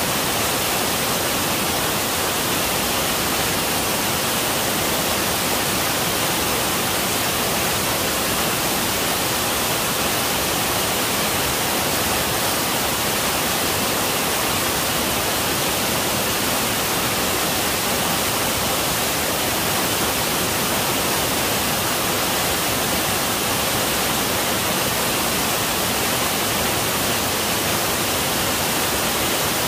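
Waterfall plunging down a rock face: a steady, unbroken rush of falling water.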